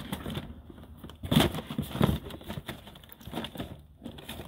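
Plastic DVD cases clacking and shifting against each other and the cardboard as gloved hands rummage through a box, with a couple of louder knocks near the middle.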